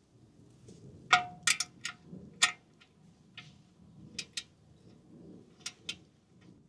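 Steel combination wrenches clinking against each other and their case as they are handled: about ten sharp, irregularly spaced metallic clinks, some ringing briefly. The loudest come between one and two and a half seconds in.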